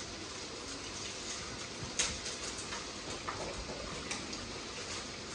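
A metal utensil clicking against a karahi, sharply once about two seconds in and lightly a few more times, over a steady hiss from the stove, as the softened tomato skins are picked out of the pan.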